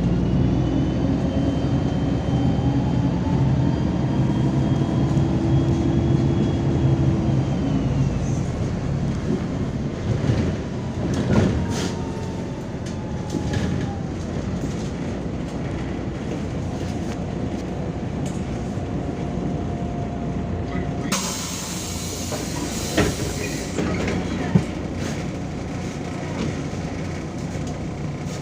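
Inside a MAZ-203 city bus: the drivetrain whine rises in pitch as the bus gets under way, then falls away about eight seconds in as it slows. About 21 seconds in comes a sudden hiss of air from the bus's pneumatics lasting a few seconds, followed by a couple of sharp clicks.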